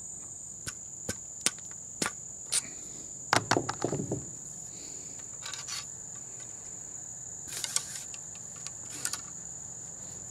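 A steady high insect drone throughout, over a dozen or so short knocks and taps of a ramrod and ball starter as a cloth-patched round ball is pushed down a muzzleloader's barrel, several close together a little over three seconds in.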